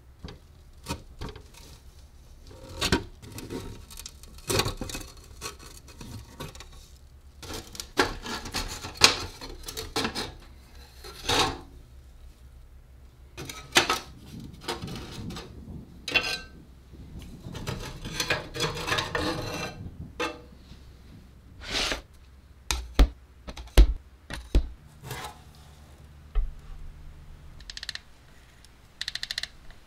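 A vintage Corn Pop-O-Mat popcorn maker being taken apart: irregular clinks, rattles and scrapes of its rusty sheet-metal case and glass panel being handled, with a few sharper knocks a little past the middle. Near the end a socket wrench works a nut on the heating pan.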